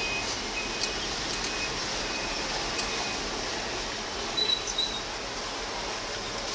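Steady fan-like hiss, with a few faint clicks and short high-pitched beeps scattered through it.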